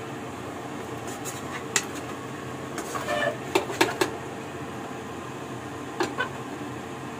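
A spatula scraping and clicking against a pan as vegetables and tuna are stirred: a few scattered clicks, bunched together in the middle and again near the end, over a steady low hum.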